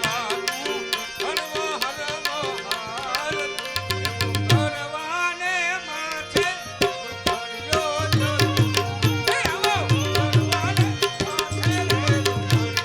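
Indian music with tabla drumming under a wavering melody. About four seconds in, deep bass pulses join in a repeating pattern.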